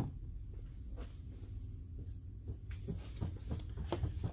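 Hands handling hose parts in an engine bay: one sharp knock at the start, then light scattered clicks and rustles, over a low steady hum.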